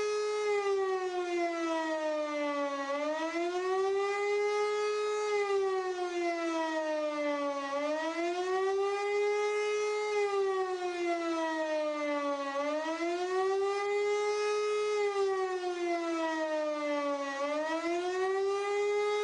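German E57 electromechanical civil-defence siren, driven by a 5 kW three-phase motor, sounding the 'warning of the population' signal: a loud wail that rises, holds briefly at the top and falls again, about four cycles of roughly five seconds each.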